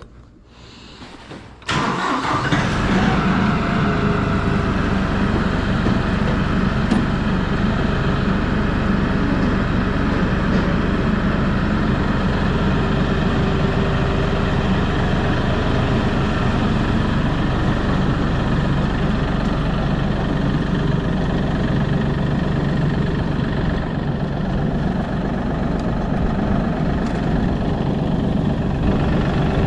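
Engine of a snowplowing vehicle coming in abruptly a little under two seconds in, then running steadily at an even pitch and level.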